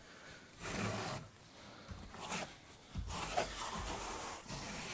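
Steel trowels scraping and spreading adhesive and reinforcing mortar over insulation boards, in several separate scraping strokes.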